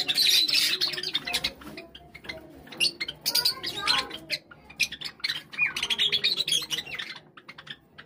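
A flock of Java sparrows chirping and twittering, many birds calling at once, with busy bouts of quick high chirps near the start, in the middle and again about six seconds in.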